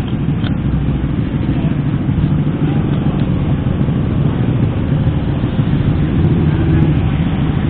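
Road vehicle travelling at speed: a steady low engine drone mixed with road and wind noise.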